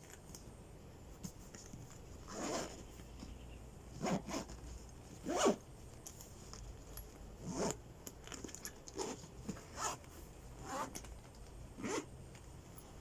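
A zipper being pulled in about nine short rasping strokes with pauses between them.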